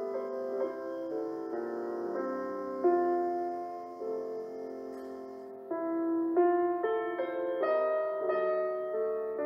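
Slow, gentle piano music, single melody notes over soft chords, growing a little fuller about six seconds in.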